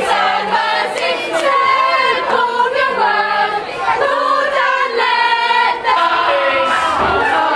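A group of voices singing together in chorus, holding long notes and moving between them.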